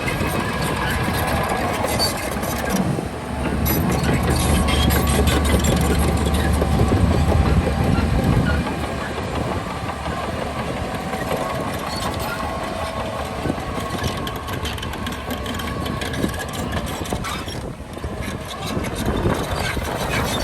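Diesel engine of a Shantui DH17C2 crawler bulldozer working, with metallic clanking. It grows louder and deeper from about three seconds in, then eases off after about eight seconds.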